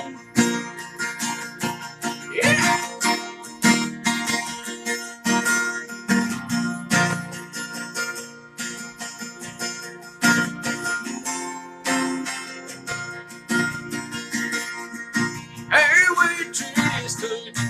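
Acoustic guitar strummed in a steady rhythm as an instrumental break in a country song, with singing coming back in near the end.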